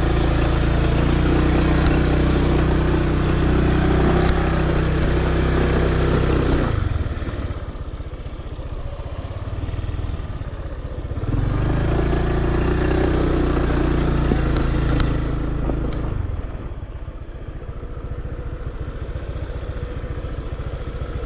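Scooter engine pulling at a steady, moderate speed on a rocky dirt track, easing off about seven seconds in, pulling again from about eleven to sixteen seconds, then dropping back to a low running note. Throughout, tyres and suspension rattle and knock over loose stones.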